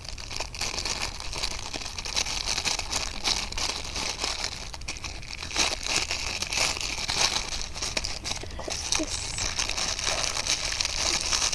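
Thin plastic packaging bag crinkling and crackling steadily as it is handled, with many small crackles throughout.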